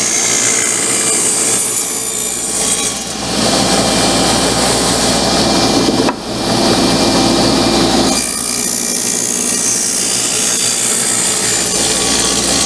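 Table saw running and cutting through the walls of a closed cedar box to split it into lid and body, the box turned between passes. The cut is heaviest from about three to eight seconds in, with a brief lull near the middle.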